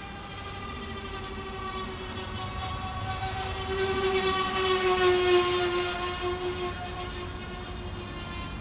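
Four-motor electric RC model of a Martin 130 China Clipper flying past, its micro electric motors giving a steady whine. The whine grows louder about four to six seconds in, its pitch sinking slightly as the plane passes, then fades back.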